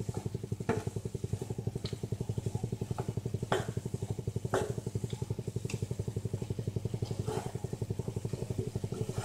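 A low mechanical hum pulsing rapidly, about ten beats a second, with a few sharp clicks scattered through it.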